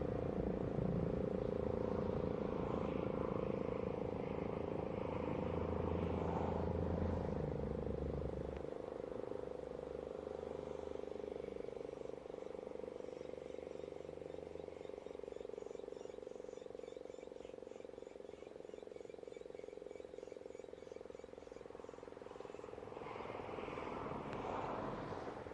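Rosenbauer FS8 fire siren sounding one steady note that slowly grows fainter. A low rumble runs underneath for the first eight seconds or so.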